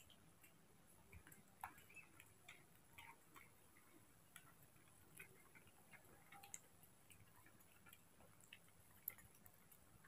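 Near silence with faint, irregular little clicks: a baby monkey suckling at the teat of a milk bottle.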